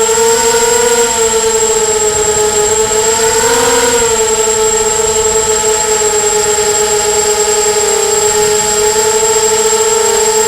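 Emax 250 Nighthawk quadcopter's brushless motors and propellers whining steadily. The pitch rises briefly about a second in and again near four seconds in as the throttle comes up.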